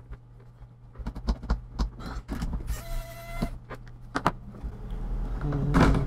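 A small electric screwdriver whines briefly about three seconds in, undoing the last screw holding the hard drive's metal shield. Around it come light clicks and knocks of the metal shield and parts being handled.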